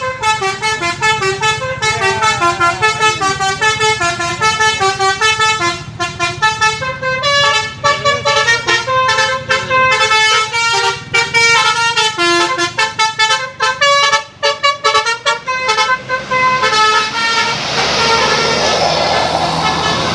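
Bus telolet horn, a set of multi-note air horns, playing a quick melody of short notes that jump up and down in pitch. About sixteen seconds in it stops and gives way to an even rushing noise.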